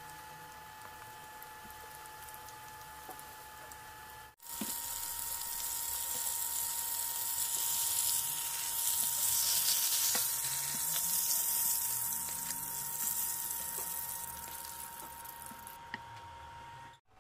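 Oil sizzling under meat-filled manty dumplings frying in a skillet. The sizzle is faint at first, turns loud after a cut about four seconds in, and then fades toward the end.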